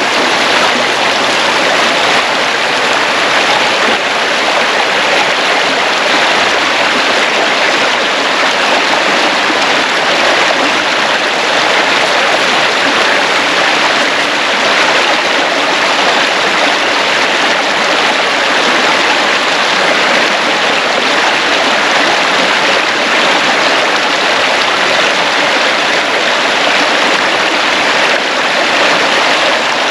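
Creek water rushing, a loud steady noise with no break.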